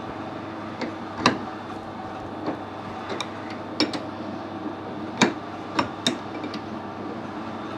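About half a dozen sharp metal clicks and clinks as a hex nut is worked by hand on the freshly cut thread of a stainless fitting held in a lathe chuck, over a steady hum.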